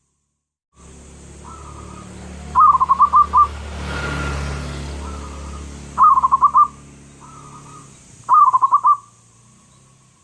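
Zebra dove (perkutut) cooing: three loud phrases of five or six quick notes each, about three seconds apart, each led in by a softer note. Under them runs a steady background hum and hiss, with a low rumble that swells and fades in the middle.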